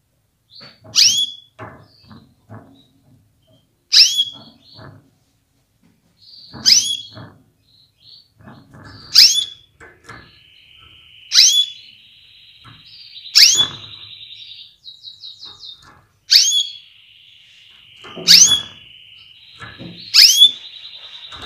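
Female canary repeating a sharp, downward-sweeping call about every two and a half seconds, nine times in all, soft low knocks between the calls. From about halfway through, a quieter, steady buzzing trill runs under the calls.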